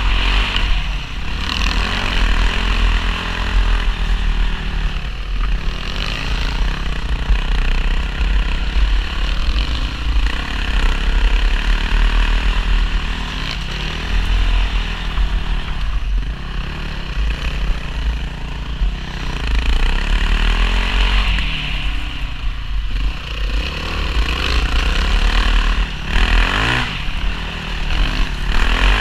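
A 450cc single-cylinder four-stroke enduro dirt bike heard close up from the rider's own bike, running along a rough trail with the throttle rising and falling. A heavy low rumble sits under the engine throughout.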